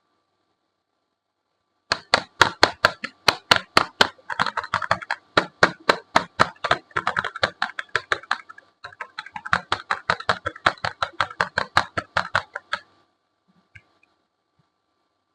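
Dry soap being cut: a rapid run of crisp cracks and clicks, about four or five a second. It starts about two seconds in, pauses briefly about two-thirds of the way through, and stops abruptly near the end.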